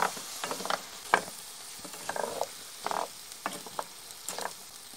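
Wooden spoon stirring and scraping chicken pieces around an iron skillet, a scrape every half second to a second over a steady sizzle of the food frying.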